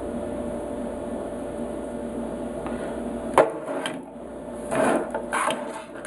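Plastic parts of a small electric air horn compressor being handled on a wooden table: a sharp click about three and a half seconds in, a few lighter knocks, then a brief clatter near the end as pieces are set down and the motor is picked up.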